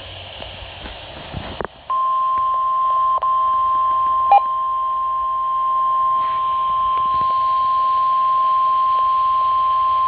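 Weather radio alert: a short stretch of radio hiss, then from about two seconds in the NOAA Weather Radio 1050 Hz warning alarm tone, one steady high tone held without a break, with a couple of faint clicks. It is the attention signal that comes before a National Weather Service severe thunderstorm warning message.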